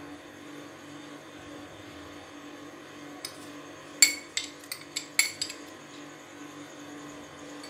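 A glass tumbler clinks sharply against a plastic blender jar, a quick run of about six clinks starting about four seconds in, as soaked poppy seeds are tipped and knocked out into the jar. A low steady hum runs underneath.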